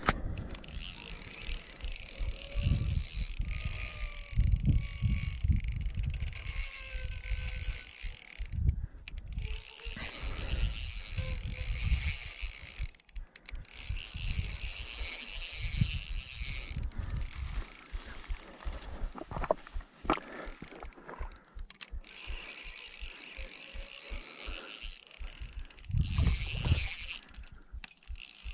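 Spinning reel being cranked on the retrieve, its gears and rotor giving a fast, even ticking whir in stretches of several seconds broken by short pauses.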